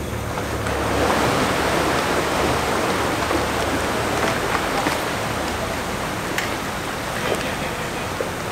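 A steady rush of churning water, swelling about a second in and slowly easing.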